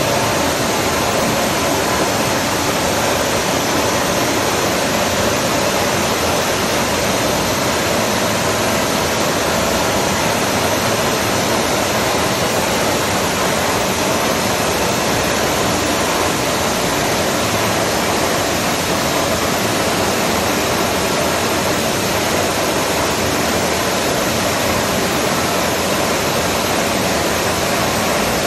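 Steady, even rushing noise of a large milling machine running while its milling head traverses along the column, with no distinct tones or knocks.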